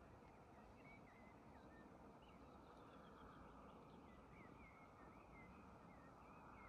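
Near silence: faint, distant birds chirping, many short calls scattered throughout, over a quiet outdoor hush.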